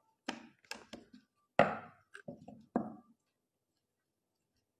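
A series of knocks and thuds as cocoa tart dough and baking tools are handled on a wooden worktop. There are about seven hits within the first three seconds, the loudest about a second and a half in.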